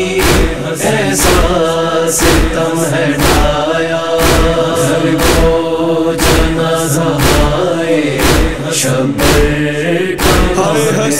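A chorus chanting a noha lament in sustained voices, over a heavy beat about once a second with lighter strokes in between.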